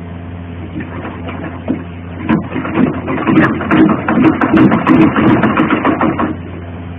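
Sewing machine stitching: a quick run of needle strokes starts about two seconds in and stops about six seconds in.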